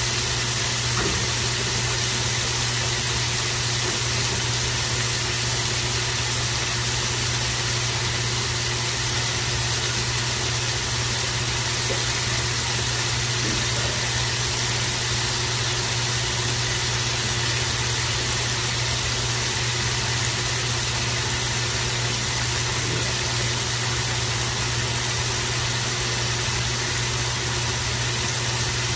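Ground beef patties sizzling steadily in hot olive oil in a large steel pot, over a constant low hum.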